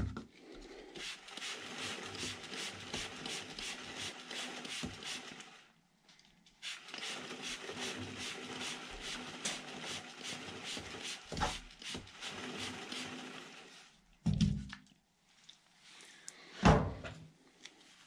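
Motorcycle chain being flushed with kerosene as it is turned: a steady hiss with fine, quick clicking, in two stretches of about five and seven seconds. Two dull thumps follow near the end.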